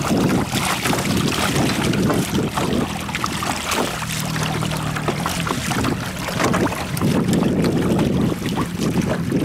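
Sailing kayak moving under sail: water rushing and splashing against the bow, with wind buffeting the microphone as a steady rumble.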